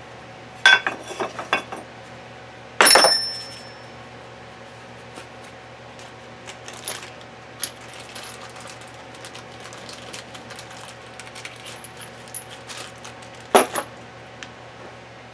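Small metal parts clinking and knocking against each other and a hard surface: a flurry of clicks, then a single ringing clang about three seconds in, scattered light taps, and another sharp knock near the end.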